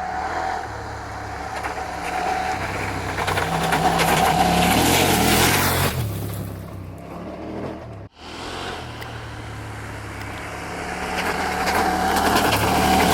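Husqvarna Norden 901's 889 cc parallel-twin engine running through an aftermarket SC Project Rally Raid end can, with a deep exhaust note. It swells louder twice, with a sudden break about eight seconds in.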